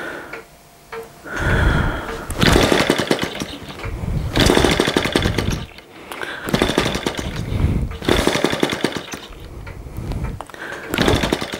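Small split-cycle two-stroke model engine firing in short bursts of rapid ticking, each about a second long, about six times, dying away between bursts. It catches briefly but won't stay running.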